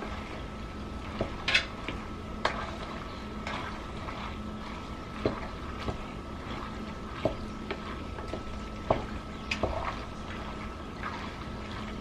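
Wooden spatula stirring a thick ground-beef and tomato meat sauce in a pot, with soft wet stirring sounds and scattered knocks and scrapes of the spatula against the pot over a steady faint hum.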